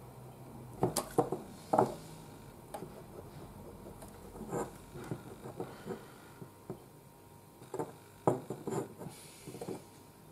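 Handling noises from a painted figurine bust gripped and turned in the hands: scattered knocks, taps and rubs, with clusters of louder knocks about a second in and again near the end.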